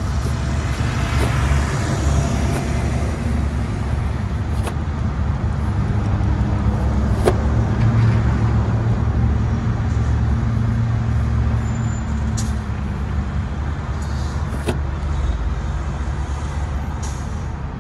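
Cummins 5.9 24-valve inline-six turbo diesel idling steadily, run to check a newly fitted fan clutch, with a few sharp clicks.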